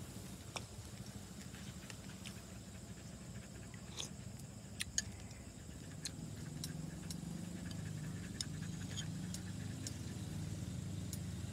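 Scattered light clicks of a metal spoon against a ceramic soup bowl while someone eats, over a steady low hum.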